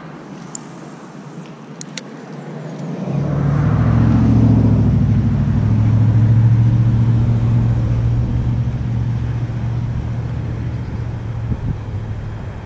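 A motor vehicle's engine running past, a low hum that swells about three seconds in and slowly fades away.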